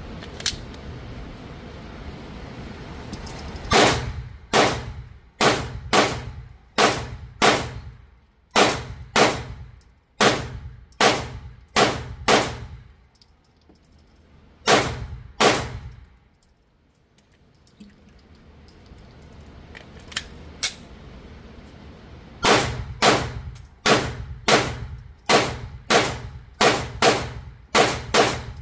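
Pistol shots fired in steady strings, about one to two a second, each a sharp crack with a short ringing tail. The shooting pauses about halfway through, with a couple of single shots, then picks up again in a fast string near the end.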